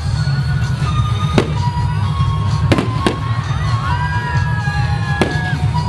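Aerial fireworks shells bursting: five sharp bangs, two of them close together near the middle, over a steady low rumble.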